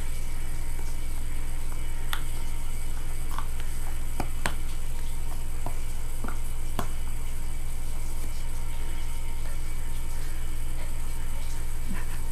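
A puppy chewing and mouthing a toy ball, giving a few short clicks and small squeaks, mostly in the first half, over a steady low hum.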